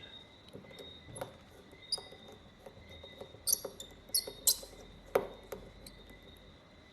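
Small, sharp clicks and ticks of a precision screwdriver and tweezers on tiny screws being refitted inside an iPhone 12 Pro Max, irregularly spaced, with a faint steady high-pitched whine underneath.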